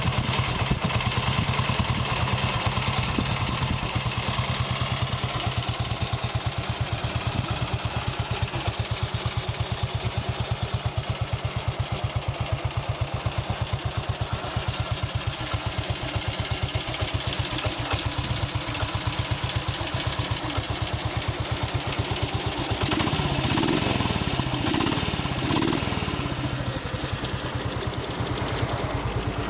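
1934 Triumph 5/1 550cc single-cylinder motorcycle engine idling with an even, steady beat. About three quarters of the way through, the throttle is blipped three times in quick succession, each rev rising and falling back to idle.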